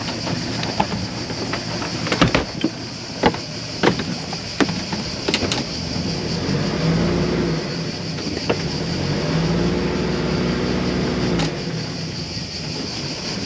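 Scattered sharp knocks and clicks, and a motor hum that runs twice, for about two seconds each time, in the second half, over a steady high hiss.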